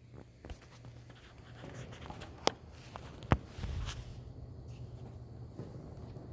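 Scattered clicks and rustling with two sharp knocks, about two and a half and three and a half seconds in, over a steady low hum.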